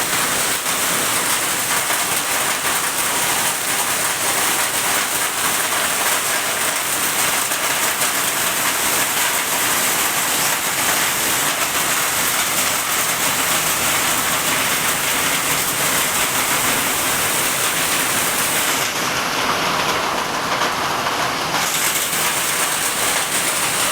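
Heavy rain pouring down steadily, a dense, even hiss of a downpour beating on surfaces. The hiss dulls briefly for a couple of seconds near the end.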